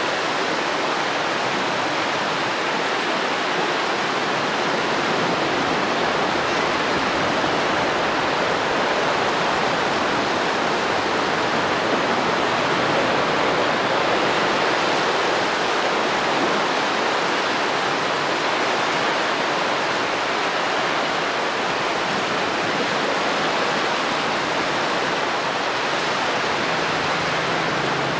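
Baltic Sea surf washing onto a sandy beach: a steady, even rushing of small breaking waves with no single wave standing out.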